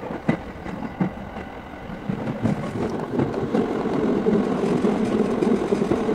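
Sotetsu Izumino Line electric commuter train running, heard from inside the passenger car. Its wheels click over the rail joints, then a louder, steady rumble sets in about two and a half seconds in as the train enters a tunnel.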